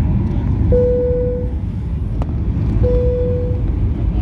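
Airliner cabin noise on descent: a steady low rumble of engines and airflow. Two short, matching chime-like tones sound about two seconds apart, with a single click between them.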